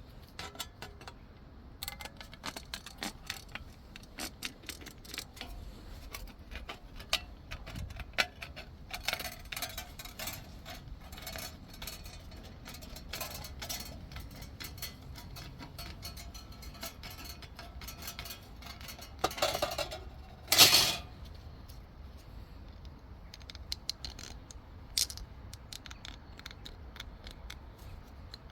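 Light metallic clicks and clinks of small metal parts and hand tools being handled on a workbench, irregular throughout, with a louder scraping rasp lasting a second or two about twenty seconds in.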